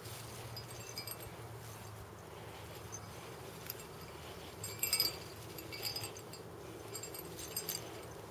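Light metallic jingling from a cat's collar as it rolls in the dirt: a few short clinks about a second in, a louder cluster about five seconds in, and more near six and seven and a half seconds.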